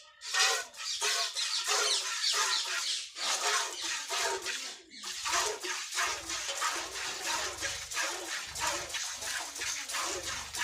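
Milk squirting into a pail in quick, even strokes, about three a second, from a cow being milked by hand.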